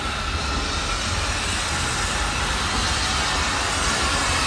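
SE&CR Class O1 steam locomotive No. 65 running slowly into a station platform: a steady rumbling noise that grows gradually louder as it approaches.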